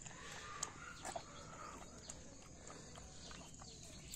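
Puppy eating soft food from a bowl, lapping and smacking with a run of small, irregular wet clicks.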